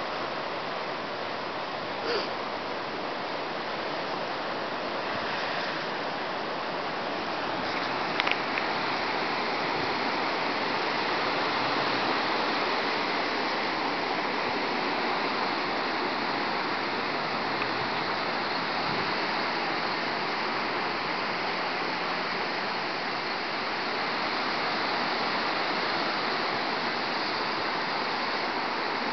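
Hurricane-force wind rushing through leafy trees, a steady hiss-like rush that swells a little about a quarter of the way in and holds. Two short clicks stand out briefly, one early and one a few seconds later.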